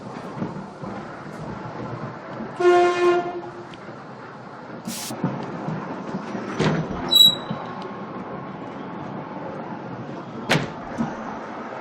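Train ambience: a steady low rumble, with a short horn-like tone about three seconds in, a few scattered knocks and clicks, and a brief high beep about seven seconds in.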